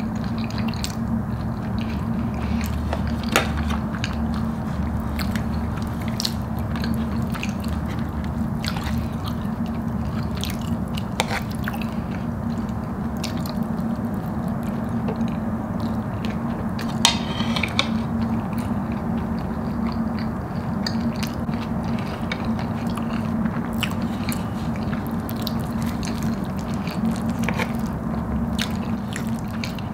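Close-miked chewing and mouth sounds of a person eating cheese-sauced fries, with scattered sharp clicks, over a steady low hum.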